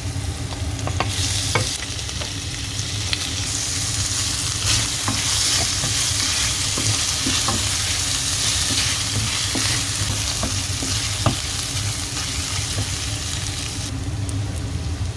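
Onions, ginger, garlic and bay leaves sizzling in hot olive oil in a frying pan as they are stirred, with scattered clicks of the utensil against the pan. The sizzle swells about a second and a half in and eases near the end.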